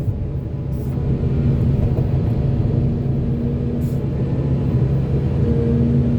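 Heavy diesel engine of a Volvo excavator running steadily under load, a constant low drone.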